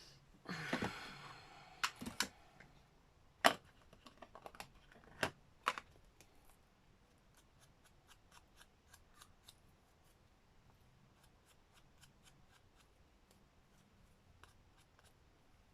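Paper being handled at a craft table: a brief rustle of thin paper about half a second in, a few sharp clicks over the next five seconds, then a long run of faint light ticks.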